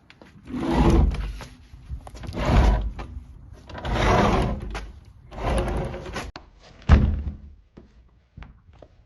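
Bifold door panels being slid back and forth along their track, four rough rolling runs of about a second each, then a sharp thump about seven seconds in as the door shuts. A rough roll like this can mean the door's wheels need replacing.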